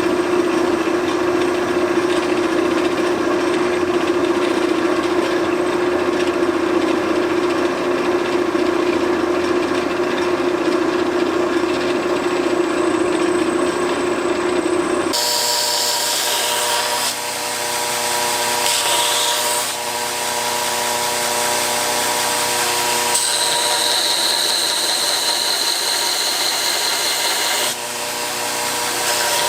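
Workshop power tools running steadily, with an abrupt change about halfway through to a different machine sound.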